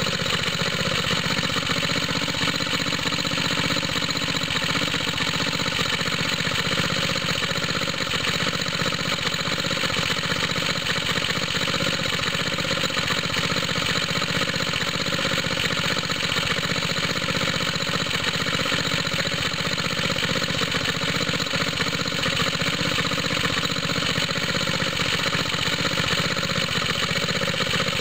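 Small air-cooled engine running steadily, belt-driving a water pump. The engine is leaking at the head gasket and has lost compression.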